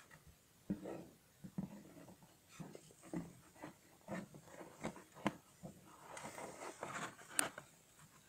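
Small plastic containers being handled in a plastic bin: irregular light knocks, clicks and scrapes, with a stretch of rustling a bit past the middle and a sharp click about seven seconds in.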